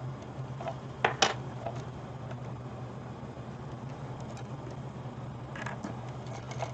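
Steady low hum, with two sharp clicks about a second in and a few faint ticks near the end: small tools and wire being handled on a metal LED board during soldering.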